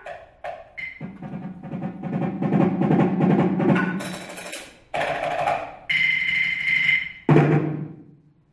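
Small tabletop percussion instruments played with mallets: a few quick strikes, then a dense roll that swells and fades. Three separate strikes follow about a second apart, one leaving a ringing tone.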